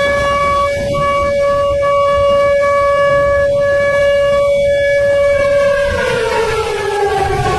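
Warning siren holding one long steady tone, then beginning to wind down, falling in pitch, near the end. A constant low rushing noise sits beneath it.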